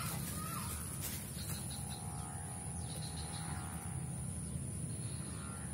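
Outdoor ambience of birds chirping now and then over a steady high-pitched insect buzz, with a low steady background hum.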